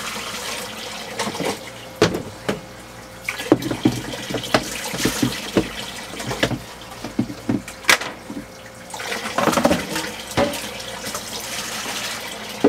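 Seawater being bailed by hand: a plastic cup scooped from a flooding bilge and poured into a stainless steel sink, over and over, with splashes and short knocks of the cup. The water is coming in faster than the bilge pump clears it.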